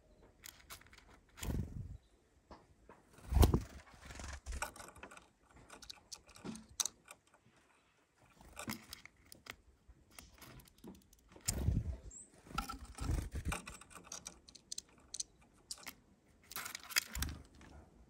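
Varied tit at a plastic bowl of sunflower seeds: irregular clicking, rattling and scrabbling of seeds and claws as it picks through the seeds, with several soft low thumps.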